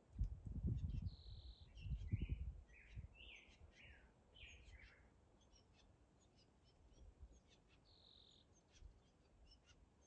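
A songbird singing: a high held note, then a run of about six falling slurred notes, with the high note again near the end and faint short chips between. Wind buffets the microphone in low gusts over the first two and a half seconds, the loudest sound.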